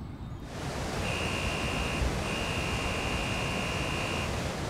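Water rushing steadily over a dam spillway. A high, steady warning tone sounds twice over it: once for about a second, then again for about two seconds.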